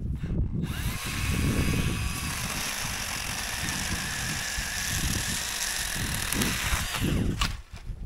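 Cordless pruning chainsaw (Milwaukee M12 Hatchet) cutting dry jack pine: the motor spins up about a second in, runs steadily through the cut, and winds down near the end.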